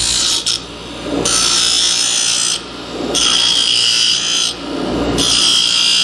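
Bench grinder grinding metal: a metal part is pressed against the spinning wheel four times, each pass lasting about a second. Between passes the grinder keeps running more quietly.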